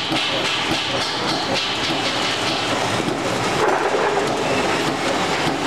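CNC turret punch press punching rows of small holes in steel sheet to make perforated mesh: a steady, rapid clatter of repeated punch strokes.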